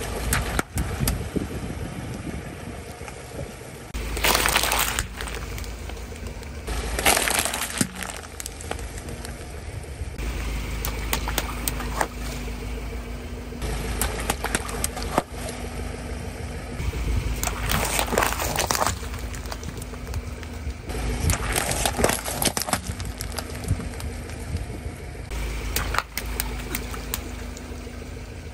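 Car tyre rolling over water-filled balloons on wet asphalt, the balloons bursting one after another with splashes of water and water beads in several loud bursts. The car's engine runs steadily underneath.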